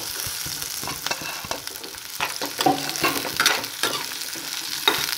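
Chopped onion frying in hot oil in a kadhai with a steady sizzle, while a spatula stirs the mixture and scrapes and knocks against the pan again and again.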